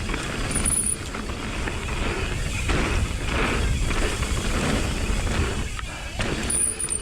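Mountain bike riding downhill on a dirt trail: steady wind buffeting on the mic, with tyre noise and the bike rattling over bumps.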